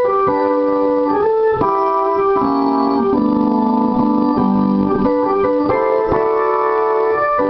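Roland RD-300GX stage piano playing its "Gospel organ" preset: held organ chords that change every second or so, with a slight waver in some of the sustained notes.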